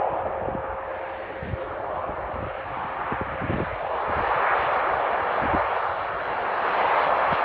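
ATR 42-500 twin-turboprop airliner's engines and propellers, a steady rushing drone that swells twice, about four and a half and about seven seconds in.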